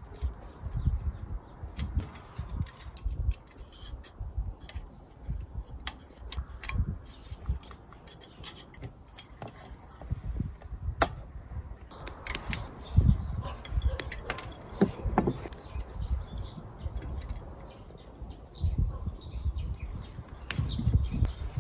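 Small clicks and taps of hands handling finned aluminium CPU heatsinks and wires of a thermoelectric generator module, with pliers on the wires near the end, over a low uneven rumble and occasional bird chirps.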